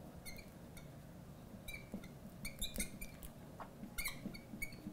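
Neon marker squeaking on a glass lightboard as letters are written: a series of short, faint, high-pitched squeaks, one for each pen stroke.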